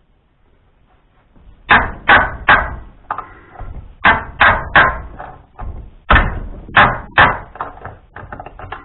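Hammer blows on steel, struck in sets of three hard, ringing knocks, then a quicker run of lighter taps near the end: an attempt to shock loose a broken bolt, plug-welded to a nut, that is stuck fast.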